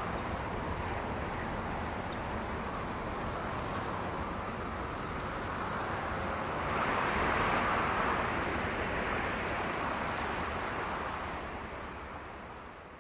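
Steady rushing wind, swelling about seven seconds in and fading out near the end.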